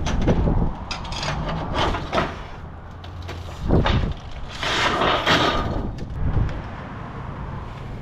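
Debris being handled and moved: a series of irregular knocks and scrapes, with the longest, loudest scrape about five seconds in.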